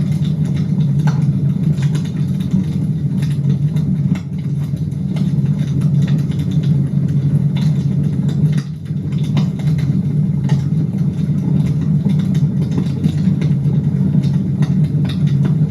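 Fire burning in a fireplace: a steady low rumble with frequent scattered crackles and pops.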